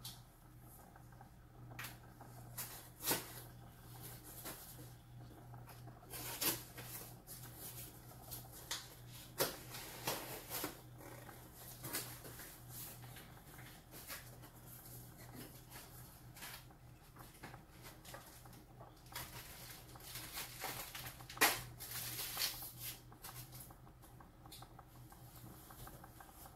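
Gloved fingers tapping and pressing rhinestones onto an epoxy-coated tumbler: scattered light taps and clicks, a few sharper ones, over a faint steady low hum.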